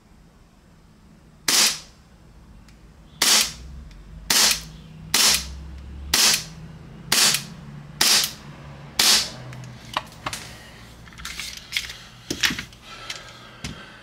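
KJ Works KP-19 gas blowback airsoft pistol firing eight sharp shots about a second apart, followed by several fainter, uneven pops and clicks near the end.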